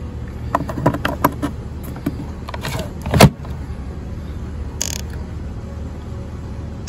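Short plastic clicks and one loud knock about three seconds in as the battery compartment of a Ryobi 40V electric lawn mower is handled, over a steady low hum; the mower motor does not run, because its battery fails to power it.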